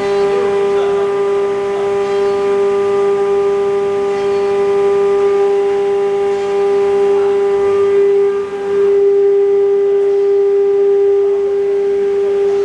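The 9 kW automatic-tool-change spindle of a CNC router runs at speed with a steady whine while it cuts MDF. The level dips briefly a little past the middle.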